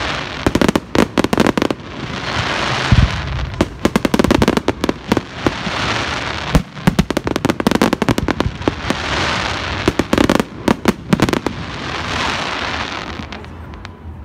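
Fireworks display: aerial shells bursting in rapid volleys of sharp cracks and bangs. Each volley alternates with a swelling and fading hiss, about every three seconds, and it all dies down near the end.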